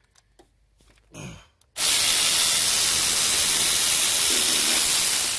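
A few faint clicks, then a loud, steady spraying hiss that starts suddenly about two seconds in and lasts about three and a half seconds.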